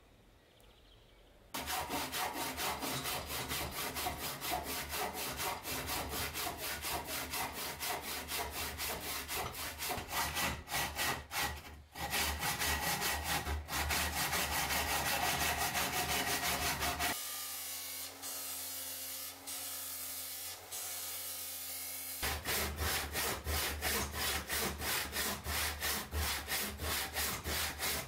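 Hand saw cutting a wooden block clamped in a vise, in quick, even back-and-forth strokes that start about a second and a half in. Past the middle there is a few seconds' steadier, quieter stretch before the strokes resume.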